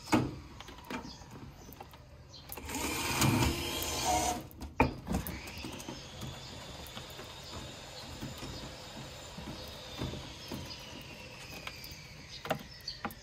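Plastic pipe fittings being handled and pushed onto PVC pipe: scattered sharp clicks, and a rough rubbing noise lasting about two seconds a few seconds in.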